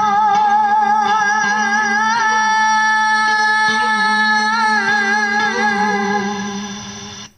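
Vọng cổ music: a long held note with a wavering vibrato, most likely sung, over a steady low accompaniment drone. It fades near the end and then stops abruptly.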